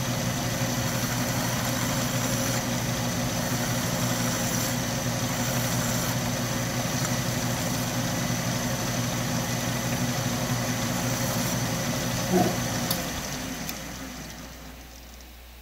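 Atlas 10-D metal lathe running steadily with its chuck spinning while a hand file is held against the turning brass cross-feed nut. A short knock comes about twelve seconds in, after which the lathe winds down and the sound fades away.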